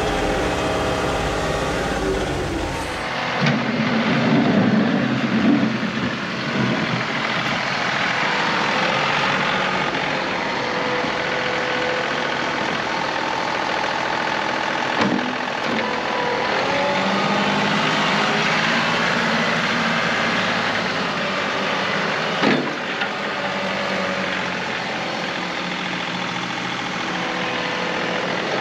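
John Deere 2038R compact tractor's diesel engine running steadily while it plows snow with the loader bucket, with a couple of sharp knocks midway and near the end.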